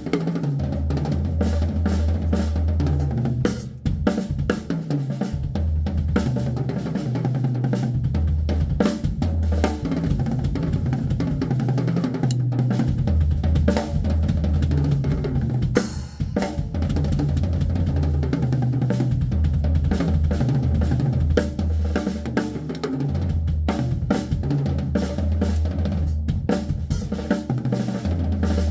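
Drum kit played in fast bursts: stretches of a second or two of rapid-fire bass drum and snare strokes, again and again, with the odd cymbal crash.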